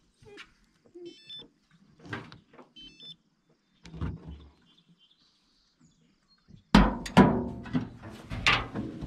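Dog tracking collars handled on a pickup's metal dog box: light clicks and knocks, with two short strings of electronic beeps in the first few seconds as a collar unit is handled. Near the end, a run of louder metal clanks and thumps against the dog box.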